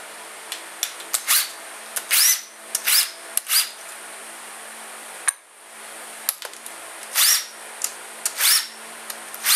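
Cordless drill/driver with a socket spinning out the valve cover bolts on a KTM RFS four-stroke engine's cylinder head: about half a dozen short bursts in two groups, each starting with a rising whine, with light clicks of the bolts and tool between them.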